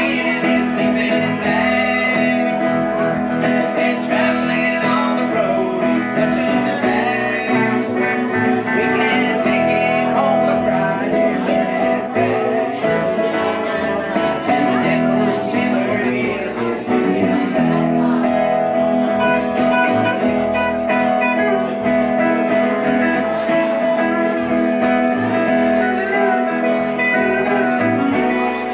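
Live band playing: electric and acoustic guitars over an upright bass, with a singer.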